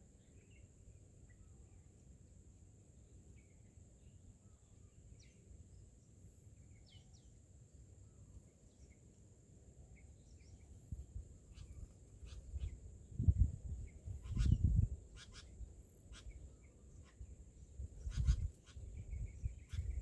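A steady high-pitched drone with faint short chirps over it. From about halfway through come several loud low rumbling bursts with sharp clicks, the loudest a little after the middle and again near the end.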